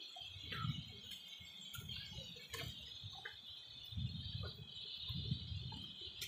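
Steady high-pitched drone of insects, such as crickets or cicadas, with irregular low rumbling and a few sharp clicks over it.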